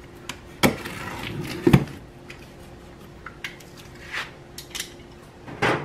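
Cardboard shipping box being cut open and handled on a metal grill lid: rustling and scraping, with scattered knocks, two of them sharper in the first two seconds.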